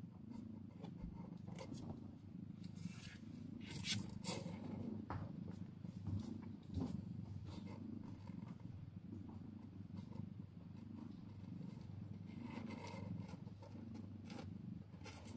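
Mother cat purring steadily, a low pulsing hum, just after giving birth. A few brief faint scratchy noises come through about four seconds in and again near the end.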